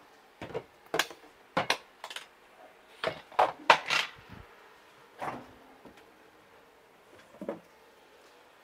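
Scattered clicks and knocks of kitchen containers and utensils being handled, about a dozen sharp separate knocks in the first four and a half seconds and one more near the end.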